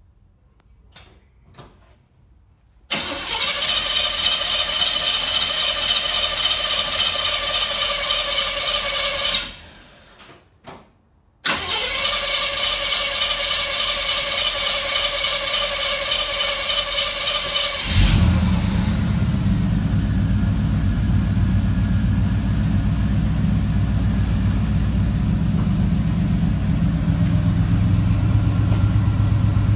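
1967 Chevrolet Caprice cranked on its starter motor for about six seconds without catching. After a short pause it is cranked again for about six seconds, then the engine fires and settles into a steady idle. This is its first start after a month sitting during an overhaul.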